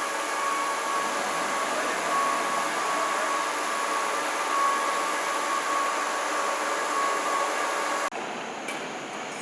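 Machining noise from a CNC machine: a steady hiss with a constant high whine. About eight seconds in the sound changes abruptly, getting a little quieter and losing the whine.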